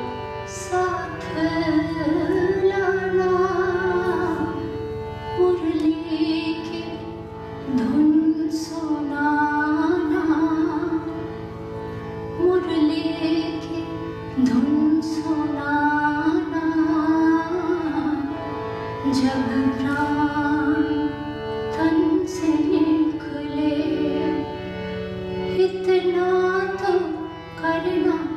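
A woman singing an Indian song in a gliding, ornamented line over harmonium drone, with guitar and lap-held string instrument accompaniment.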